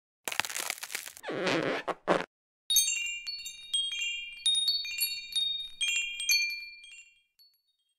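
Wind chimes tinkling: many small, high struck notes in quick irregular succession, each ringing on and overlapping, dying away near the end. They follow about two seconds of rushing, hissing noise.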